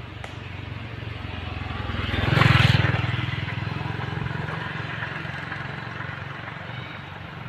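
A motor vehicle passing by: its engine noise swells to a peak about two and a half seconds in, then slowly fades.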